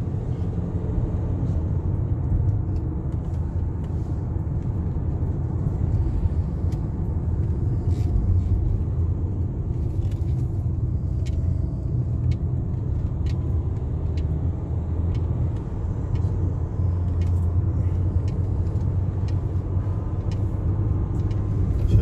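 Steady low rumble of engine and road noise inside a car's cabin as it drives along a winding road.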